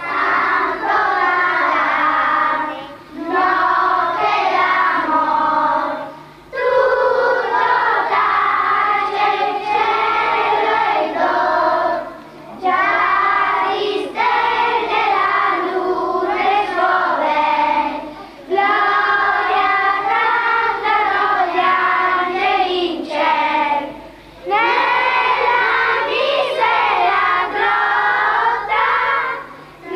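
A children's choir singing a song, line after line, with brief breaks between the phrases.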